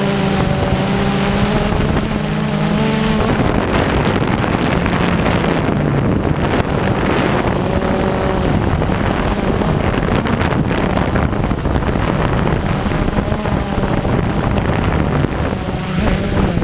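Blade 350QX quadcopter's motors and propellers, heard from its onboard camera, with wind buffeting the microphone. A steady multi-tone whine in the first three seconds gives way to rougher, noisier running as the drone comes down low over the grass.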